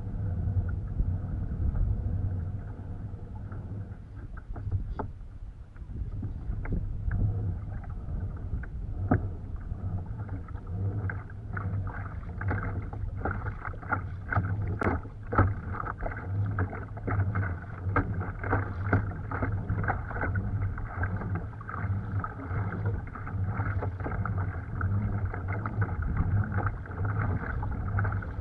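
Pedal-driven fishing kayak under way in choppy water: a steady low rumble with water slapping and splashing against the hull, the splashes growing frequent about a third of the way in.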